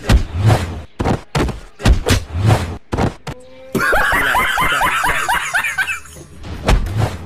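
A string of sharp hits with deep thuds, then a man's loud, high-pitched cackling laugh, a rapid 'ha-ha-ha' of several beats a second lasting about two seconds. One more heavy thud comes near the end.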